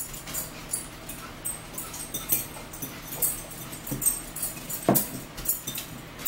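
Close-up eating sounds: forks clinking and scraping in salad bowls, with chewing and lip smacks, heard as a string of short, irregular clicks.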